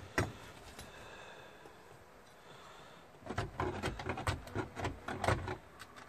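A single click, then about three seconds in a run of rustling and scraping as gloved hands cut and pull honeycomb from the hive cavity.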